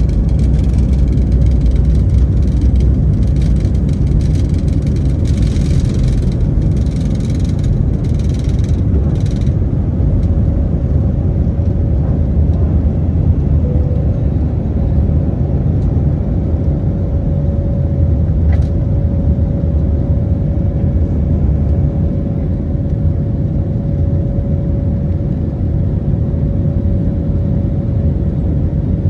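Airliner cabin noise: a steady low rumble from the engines and airframe, with some rattling early on. A steady whine joins about a third of the way through.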